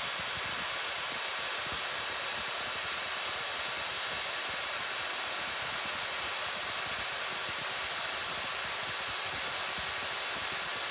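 Bare universal motor with its plastic fan housing running steadily at full speed: a loud, even rush of air with a thin, steady high whine.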